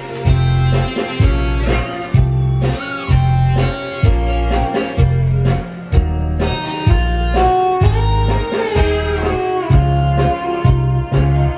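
Instrumental music: a bass line pulsing in regular notes under a guitar-like lead melody with sliding, bending notes.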